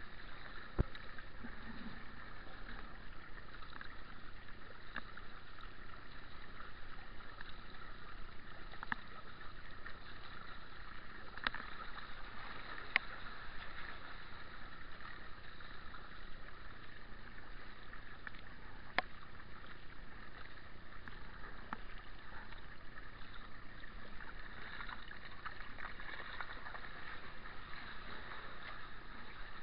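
Kayak paddling on calm canal water: a steady wash of water dripping and trickling off the paddle blades, with a few sharp clicks scattered through.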